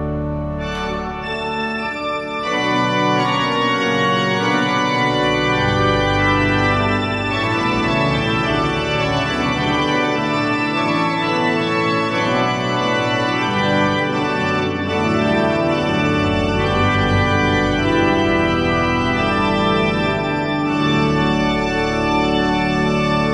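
Pipe organ playing sustained full chords with many stops drawn, the sound growing fuller and louder about two and a half seconds in.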